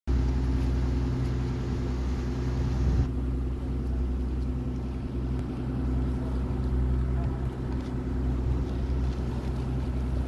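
Passenger boat's engine running steadily, heard from on board as a low, even drone. A higher hiss over it falls away about three seconds in.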